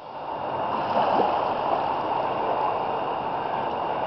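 Flooded river water rushing steadily.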